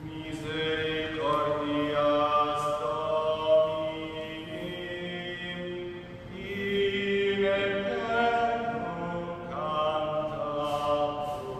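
Slow liturgical chant: a voice singing long held notes in phrases, with brief breaths about halfway through and again near the end.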